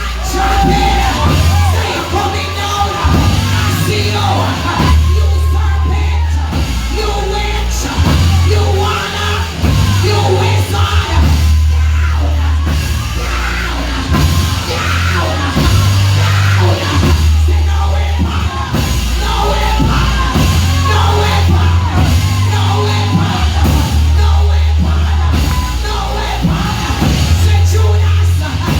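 Loud gospel music with a heavy, sustained bass line changing note every second or two, and voices singing and shouting over it.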